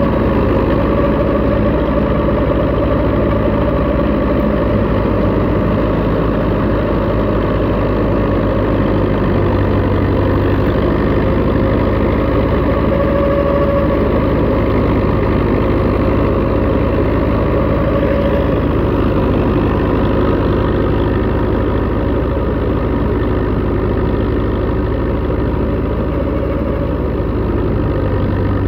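Belarus tractor's diesel engine running steadily, driving a wheat thresher. A steady whine sits over the low drone throughout.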